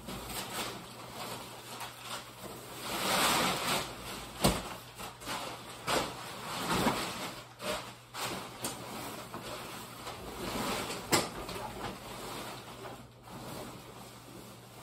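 Insulated fabric of a Cabela's 6x12 thermal hub ice shelter rustling and swishing as it is pulled open and unfolded, in uneven swells. Now and then there is a sharp knock or click.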